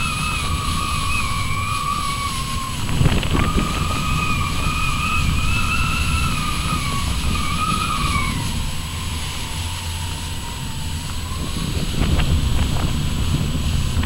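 Wind rushing over the microphone of an airborne camera as a low buffeting rumble, with a thin whistling tone that wavers up and down, breaks off about three seconds in, returns, and sinks lower and fainter in the second half.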